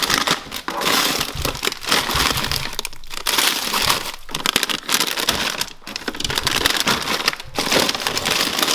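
Plastic packaging crinkling and rustling as it is rummaged through and handled, with a few brief pauses.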